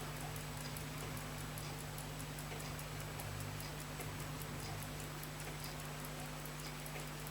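Fast, even, faint ticking of a running watch or clock movement over a steady low electrical hum.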